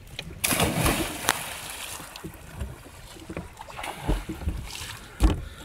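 A splash as a diver hits the lake water headfirst, the splashing dying away over about a second. Water sloshing follows, then low thumps against the boat's side as a swimmer climbs back aboard.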